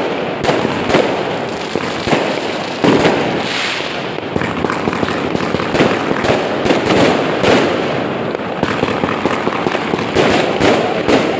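Consumer fireworks firing and bursting overhead: a dense, unbroken run of loud bangs and crackles from rockets and aerial shots, with a sharper bang about three seconds in.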